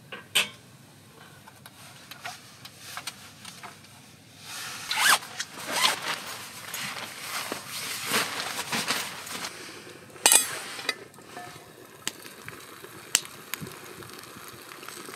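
Sleeping-bag fabric rustling and a zip being worked as a metal hot-water bottle is tucked into the bed. There is a sharp knock about half a second in, and the loudest scrape comes about ten seconds in.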